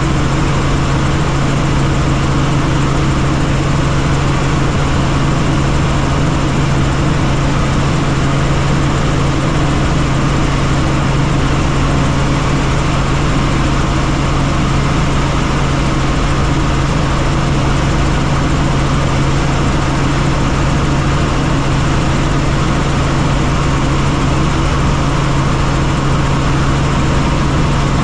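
Helicopter in flight: loud, unchanging engine and rotor noise with a steady low hum.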